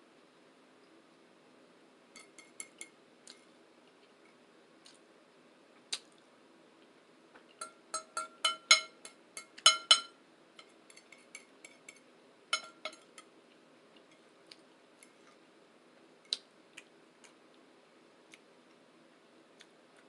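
Cutlery clinking against a plate while eating: scattered light ringing taps, with a quick flurry of louder clinks in the middle, over a faint steady hum.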